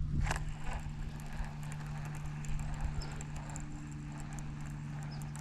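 Boat motor running with a steady low hum, with a few faint light ticks over it.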